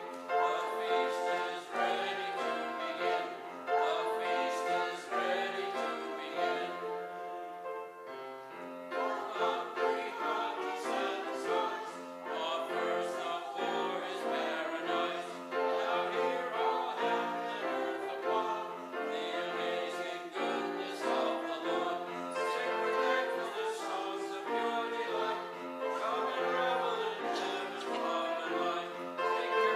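Small church choir singing with keyboard accompaniment.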